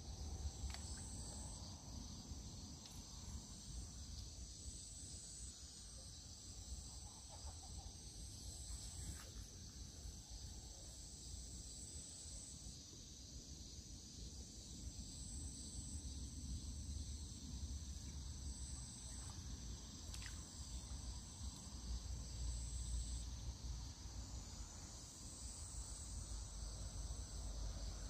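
Insects chirring steadily and high-pitched, with a pulsing trill that repeats every second or two, over a low rumble that grows a little stronger near the end.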